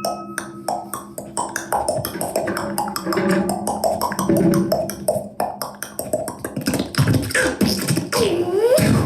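Experimental noise music played live: a rapid, irregular run of clicks and clipped, voice-like pitched fragments, with a swooping pitch glide near the end.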